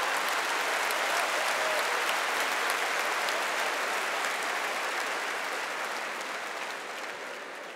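Large audience applauding, many hands clapping at once, with the clapping slowly dying away over the last couple of seconds.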